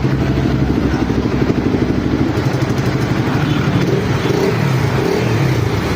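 Honda XR400's air-cooled single-cylinder four-stroke engine running steadily through a T-4 open muffler, with a loud, fast-pulsing exhaust note.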